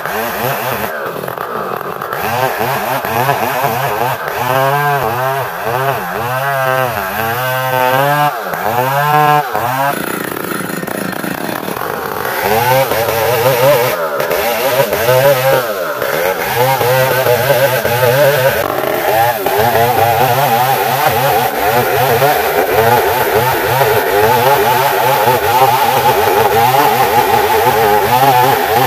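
STIHL chainsaw with a new chain ripping lengthwise through a Bornean ironwood (ulin) log, the engine running steadily under cutting load.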